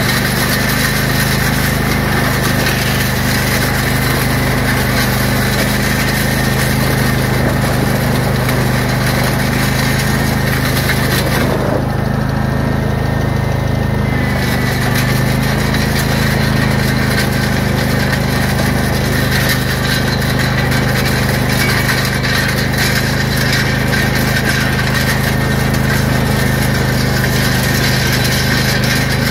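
Craftsman lawn tractor engine running steadily under load as it tows a steel land plane scraping through driveway gravel. The higher scraping hiss drops away for about two seconds near the middle, then returns.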